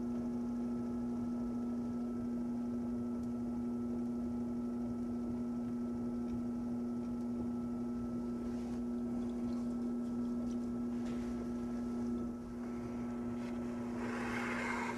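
Steady electric hum of a potter's wheel motor running as the wheel spins, with a soft rubbing of hands on wet clay near the end.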